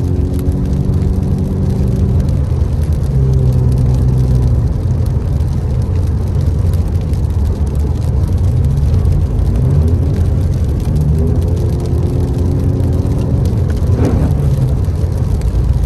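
Car engine heard from inside the cabin through a loud exhaust that lacks a proper muffler, its note climbing, holding and dropping several times with the throttle, over a steady rumble of tyres on the wet road.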